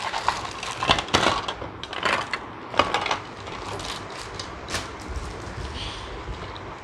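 Plastic packaging crinkling and small plastic toy pieces clicking and clattering as a toy playset is unpacked by hand, busiest in the first three seconds.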